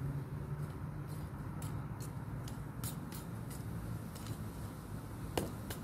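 Hands working loose garden soil while planting mint seedlings: scattered small scrapes and clicks, with a couple of sharper ones near the end, over a low steady rumble.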